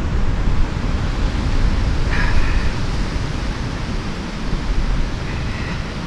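Strong wind buffeting the microphone: a steady, loud rumble of wind noise with a hiss over it.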